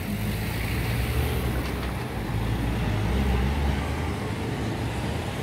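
Road traffic at low speed: a small hatchback and then a panel van drive past, their engines making a steady low hum over general street noise.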